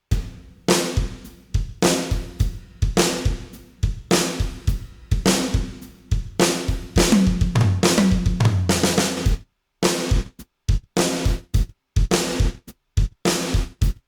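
Acoustic drum kit playing a groove of kick, snare, hi-hat and cymbals, its room ambience shaped by an expander on the quiet floor range. For most of the clip each hit carries a long ringing room tail, with two tom hits falling in pitch about two-thirds through. Near the end the tails are cut off, leaving short hits with silence between them.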